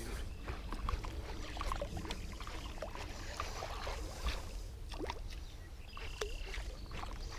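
Water splashing and lapping at the side of a fishing boat as a lure is worked near the surface, with scattered light clicks over a steady low wind rumble on the microphone.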